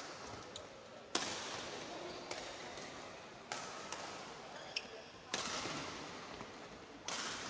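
About five sharp hits, a second or two apart, each ringing out for about a second in the echo of a large sports hall, over a faint murmur of voices.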